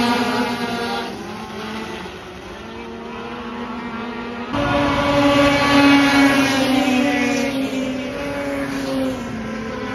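A pack of racing snowmobiles running at high revs on an ice oval as they pass, their engine note fading over the first couple of seconds. About four and a half seconds in the sound jumps back abruptly to loud engines, which slowly fade toward the end.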